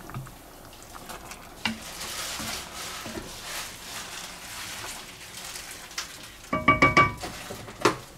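A spoon stirring a thick simmering sauce in an enamelled pot, with a steady scraping hiss. About six and a half seconds in comes a quick run of ringing metallic clanks, then one more near the end, as the utensil knocks against the pot.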